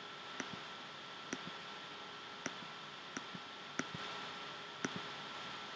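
Computer mouse clicked about six times, most clicks a quick double tick of press and release, over a faint steady hiss with a thin high hum.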